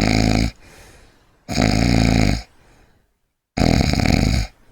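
A person snoring: three snores, each about a second long, roughly two seconds apart.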